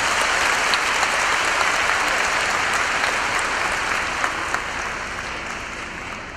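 Concert audience applauding at the end of a song, a dense patter of clapping that fades away over the last couple of seconds.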